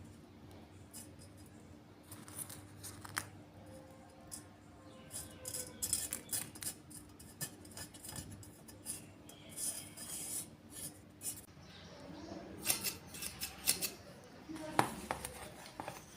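Irregular light clicks, snips and scrapes of small hand tools being handled and worked, busiest in the middle and again near the end, with a faint steady hum in the first two-thirds.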